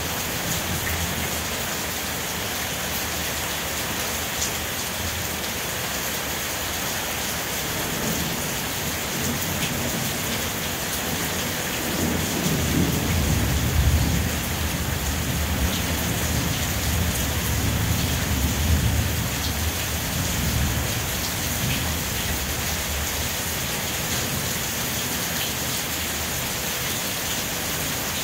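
Steady heavy rain. A long, low roll of thunder builds about a third of the way in, is loudest near the middle, and dies away about two-thirds through.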